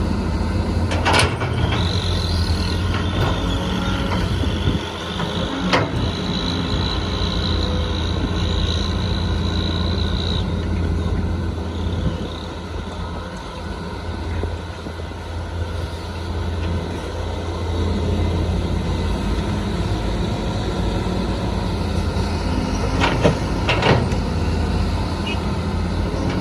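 Excavator's diesel engine running steadily, with a high whine from about two to ten seconds in and a few sharp metallic knocks: one near the start, one about six seconds in, and two close together near the end.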